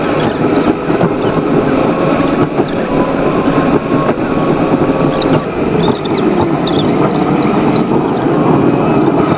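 Steady road and engine noise heard from inside a moving car at highway speed, with a faint wavering whine over it.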